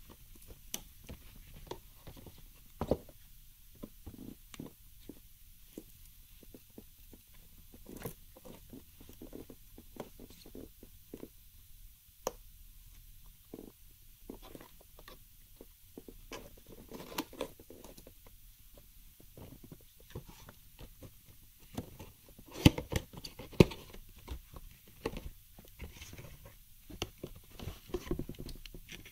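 Rubber-gloved hands handling and opening a cardboard retail box: scattered taps, scrapes and rustles of cardboard, with two sharper knocks about three-quarters of the way through.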